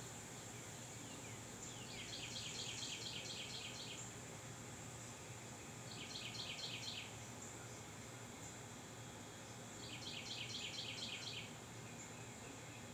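An animal's rapid pulsed trill, repeated three times at intervals of a few seconds, over a faint steady high hiss.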